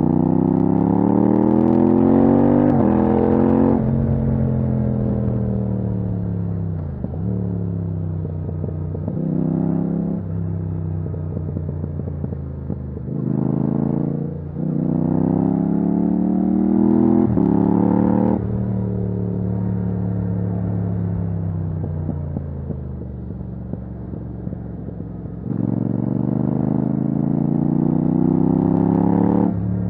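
Yamaha MT-07's parallel-twin engine through a titanium Akrapovic exhaust with no dB killer, accelerating hard and easing off several times. The revs climb, break off suddenly at quickshifted gear changes, and fall away as the throttle closes.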